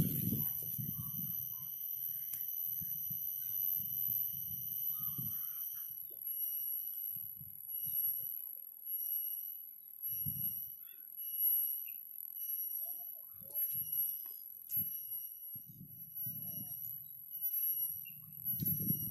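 Cicada calling: a steady high-pitched whine that breaks into regular short pulses about six seconds in. Faint low rustles and knocks run beneath it.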